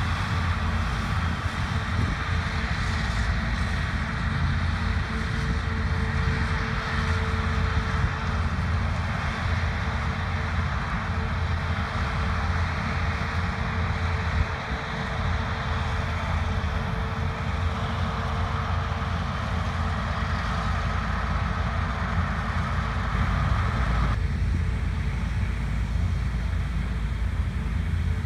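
Large harvest machinery running steadily, a deep engine rumble under a wide rushing noise, with wind on the microphone. The higher rushing part drops away about 24 seconds in, leaving the low rumble.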